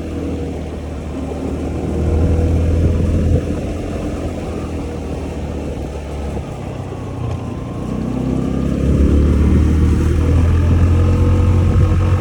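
Honda Zoomer 110 scooter's engine running while riding, with wind noise on the microphone. The engine eases off about three and a half seconds in and picks up again, louder, from about eight seconds.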